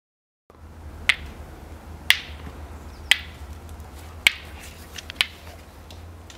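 Five sharp snaps about a second apart over a low steady hum.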